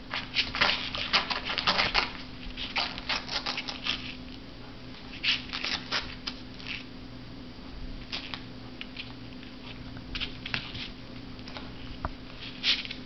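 Shih Tzu puppies crinkling and rustling a plastic bag as they nose and chew at it: irregular bursts of crackling, thick for the first few seconds, then in scattered short bouts.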